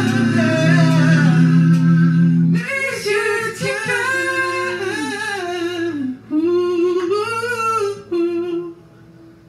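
A man singing the last phrases of a song with wide vibrato. Held accompaniment tones under the voice drop away after about two and a half seconds, leaving the voice nearly alone until it ends shortly before the end.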